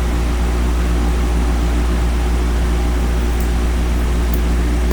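Steady low hum with a few steady low tones in it, and two faint clicks in the second half.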